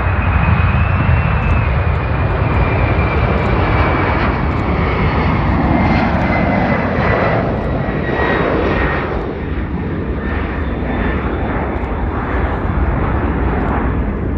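Qantas Boeing 747-400 taking off and climbing out: the four jet engines at takeoff thrust make a loud, steady roar, with a high whine that slowly falls in pitch as the jet passes and moves away.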